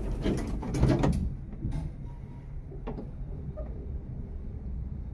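Old Schindler traction lift: a cluster of clunks and rattles in the first second, then a single sharp click about three seconds in, over a steady low hum.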